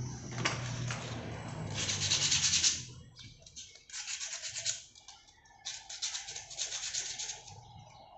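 Sandpaper rubbed by hand along the edges of a new motorcycle brake pad, in several strokes of scratchy hiss with short pauses between them. The edges are being smoothed because the cheap pad is rough.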